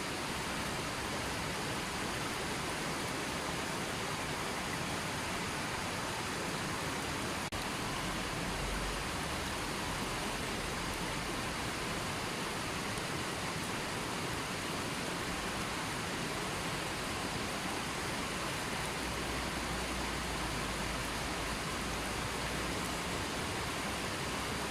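River water flowing and rushing steadily, an even hiss with no distinct splashes.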